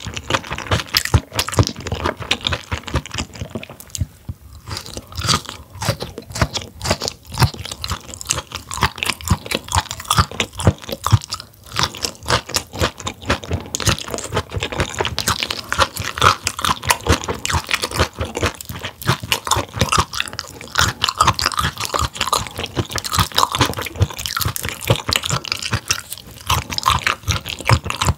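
Close-miked chewing of grilled mullet gizzard: a dense, continuous run of small sharp crunching clicks as it is bitten and chewed.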